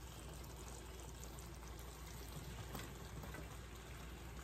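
Cooked penne pasta sliding and tumbling out of a metal colander into a frying pan of sauce: a faint, soft pouring sound with a couple of light clicks near the end.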